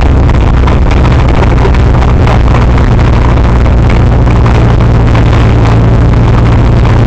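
Autocross car's engine heard from inside the cabin, very loud and held at steady revs, with a rough rush of noise over it.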